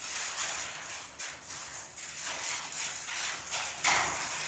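Writing by hand: a run of short, uneven scratchy strokes as the working is written out, with one louder stroke near the end.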